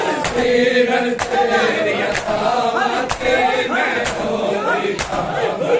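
Men chanting a Punjabi noha, a mourning lament, in chorus, over a steady beat of sharp hand strikes on the chest (matam) about once a second.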